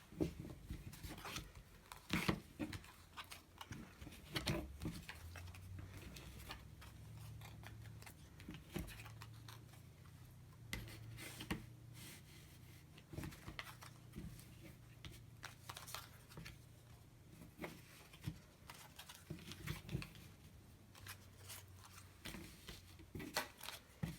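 Faint, scattered snips, taps and scrapes of thin packaging cardboard being worked by hand, coming at irregular intervals over a faint low hum.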